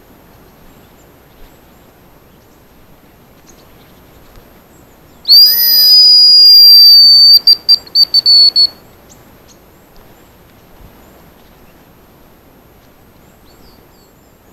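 Hazel grouse decoy whistle blown to call the birds. About five seconds in comes one long, loud, high whistle of about two seconds, then a quick run of about six short pips, imitating a hazel grouse's call.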